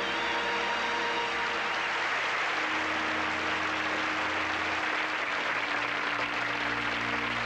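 Studio audience applauding at the close of an illusion, over band music with held notes.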